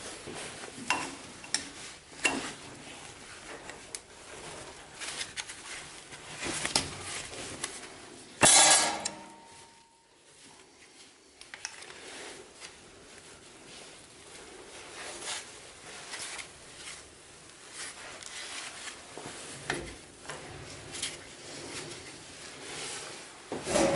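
Scattered metallic clinks and knocks of a hand tool being handled and levered against a multi-groove V-belt pulley to work the belt over, with one louder clatter about eight and a half seconds in.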